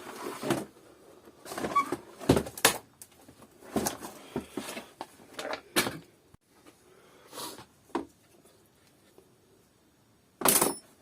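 Plastic housing of a Kärcher DS5500 vacuum cleaner being handled and worked apart with a screwdriver: irregular clicks, knocks and short scrapes, with a louder clatter near the end.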